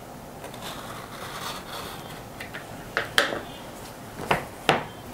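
Box cutter blade slitting the seal along the edge of a cardboard phone box, a scratchy scrape, followed by four sharp clicks and knocks as the box is handled, the loudest just after three seconds in.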